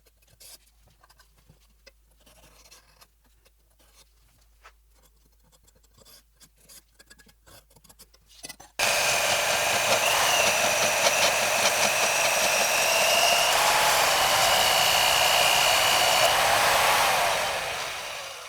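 Faint scrapes and taps, then about nine seconds in a power grinder starts abruptly and runs steadily with a high whine, fading out near the end as it winds down.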